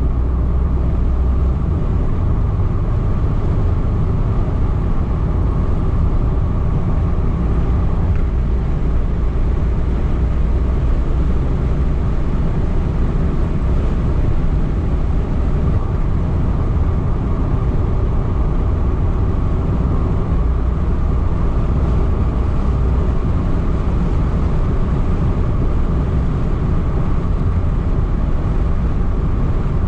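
Car driving at a steady cruising speed, heard from inside the cabin: an unbroken low drone of engine and tyre noise on the road.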